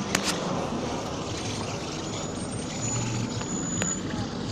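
Street traffic noise: motor vehicle engines running with a low hum that comes and goes, and two sharp clicks just after the start.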